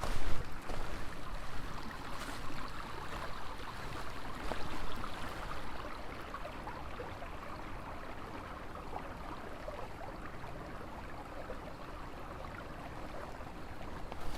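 Small forest stream running over rocks: a steady rushing, babbling water sound, with a few louder bumps near the start.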